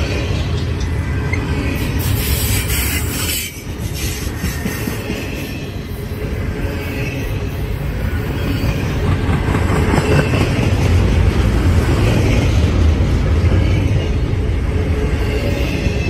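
Double-stack intermodal freight train's container well cars rolling past at trackside: a steady low rumble of steel wheels on the rails, with faint high wheel squeals in the second half. The level dips briefly about three and a half seconds in.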